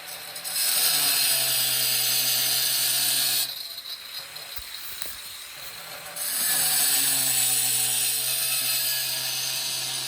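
Angle grinder with a diamond blade cutting a curved line into tile: a steady motor hum under a loud grinding hiss, in two passes of about three and four seconds, the noise dropping away for about three seconds between them.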